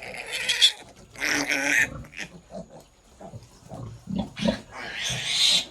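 Newborn piglet squealing in three shrill bursts as it is held, with quieter low grunts in between.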